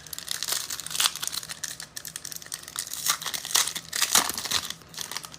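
Trading cards and their plastic and foil packaging being handled, making irregular crinkling and rustling with small clicks.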